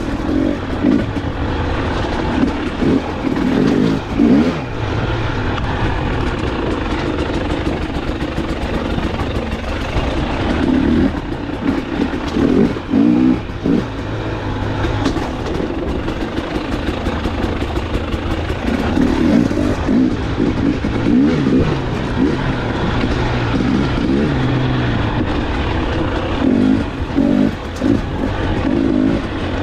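Two-stroke engine of a 2021 KTM 300 XC TPI dirt bike, revving up and down over and over as it is ridden, over a steady rushing noise.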